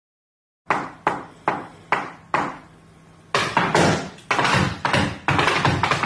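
Tap shoes striking a wooden stage floor: five single sharp taps at an even, unhurried pace, a short pause, then a fast, dense run of taps starting about three seconds in.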